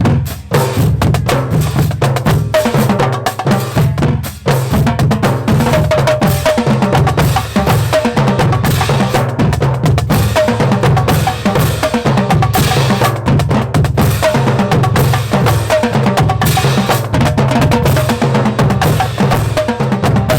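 Marching band drumline playing a fast, dense cadence, with heavy bass drums under rapid snare strokes.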